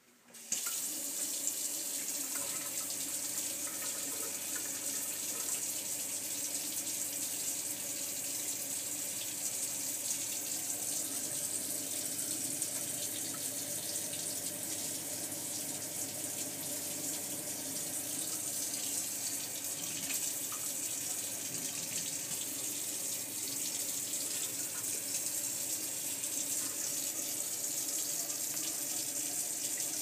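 Gas boiler's combustion fan starting about half a second in and then running steadily with an even rushing whoosh and a faint motor hum. This is the fault where the fan comes on but the burner never lights.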